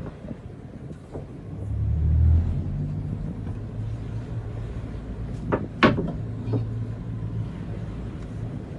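Fishing boat's engine running with a low rumble that swells about two seconds in, with a couple of sharp knocks on the deck about six seconds in.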